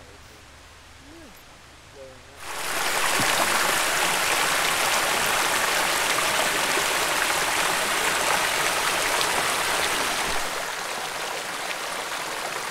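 Shallow stream rushing and splashing as it sheets over a granite rock outcrop. It comes in suddenly about two seconds in, after a quiet start, and eases a little near the end.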